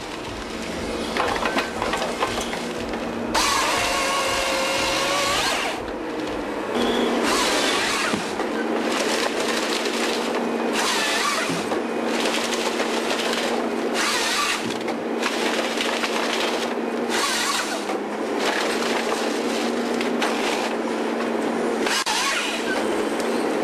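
Forestry harvester at work with a Lako harvesting head. The machine's engine hums steadily while the head's chain saw cuts through stems and wood cracks and breaks in repeated noisy bursts. There is one longer whining cut about three to six seconds in.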